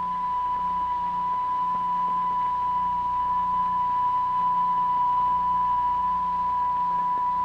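Steady, pure electronic test tone at about 1 kHz, held at one pitch: the sine-tone signal that sets the plate or fluid vibrating in a cymatics experiment.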